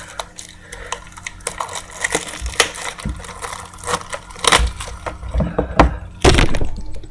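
A sealed trading card box being opened by hand: its plastic wrap crinkling and tearing and the cardboard flaps rustling, in a string of sharp crackles with a louder burst near the end.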